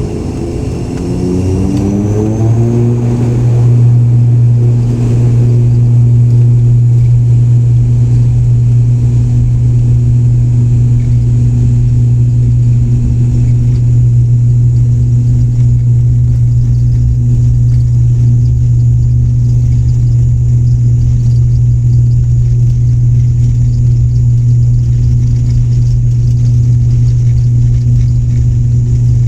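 Turboprop airliner engines spooling up to take-off power, their pitch rising over the first few seconds, then settling into a steady, loud propeller drone during the take-off.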